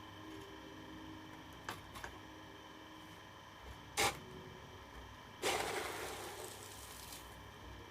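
A model excavator arm being worked: two light clicks, a loud sharp knock about four seconds in, then a short scraping rush of noise that fades out within a second or two.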